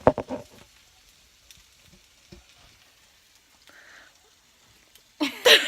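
Bacon frying in a pan, a faint steady sizzle, with a few sharp clicks and clatters in the first half second. Near the end there is a short, loud burst with a wavering pitch.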